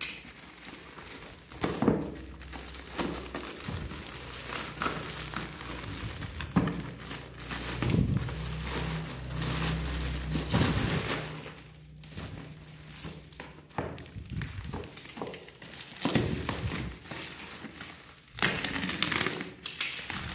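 Black plastic parcel bag and clear packing tape being torn and pulled off a bubble-wrapped box by hand, crinkling and crackling in irregular bursts.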